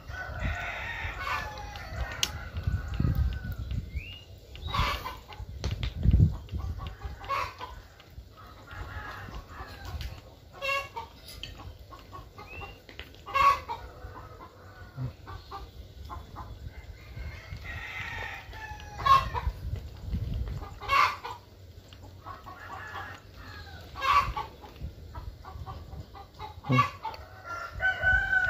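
Chickens clucking with a rooster crowing, among scattered sharp clicks and knocks from a homemade fishing reel's crank being turned and handled.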